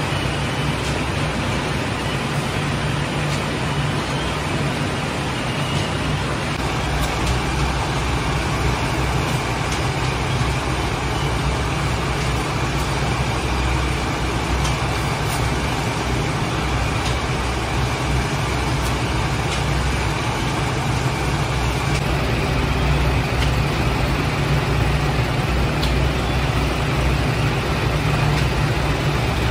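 Steady mechanical rumble and hiss of running bakery machinery: the flatbread conveyor oven and dough sheeter working without pause.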